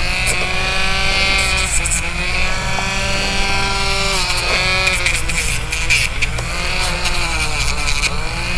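Rotary dog-nail grinder with a freshly changed sanding drum whining steadily. Its pitch sags and recovers every second or so as the drum is tapped against the dog's nails, with a scratchy rasp of nail being sanded.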